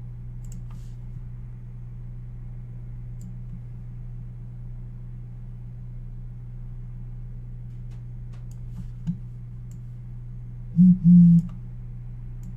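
Steady low electrical hum with a few faint clicks scattered through it. About two seconds before the end come two brief, loud low-pitched sounds close together.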